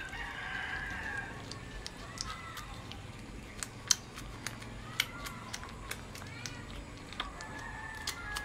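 Shih Tzu puppy whimpering in short high squeaks, loudest in the first second and again near the end, with sharp wet clicks and smacks as it eats raw meat from a hand.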